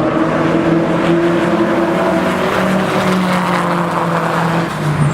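Several cars running at speed around an oval track, their engines overlapping at different steady pitches.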